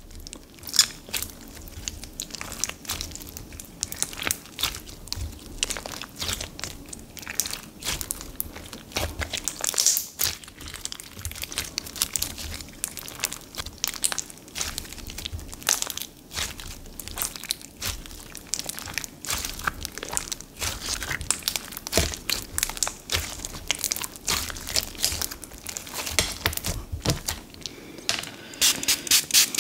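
Clear crunch bomb slime packed with foam charms and little foam rings being squeezed and stretched by hand, giving a steady stream of small crinkly crackles and crunches, a little louder and denser near the end.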